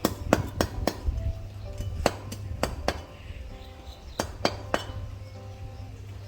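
Sharp clinks and taps at irregular intervals, about a dozen, some ringing briefly, over background music.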